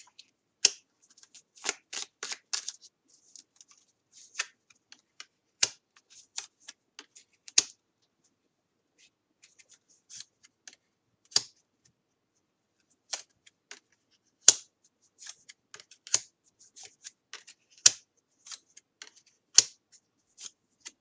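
Tarot cards being shuffled and laid out by hand: irregular sharp snaps and clicks of the cards, with a short pause about eight seconds in.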